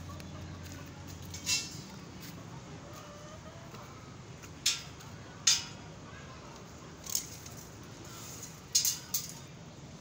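Six short, sharp clicks and taps from hands working on a welded square-tube steel frame, spread out with gaps of one to three seconds between them; the loudest come about halfway through and near the end.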